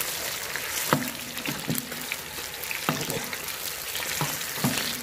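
Battered eggplant pieces deep-frying in oil in a wok: a steady sizzle, with scattered clicks and pops as a metal ladle stirs them.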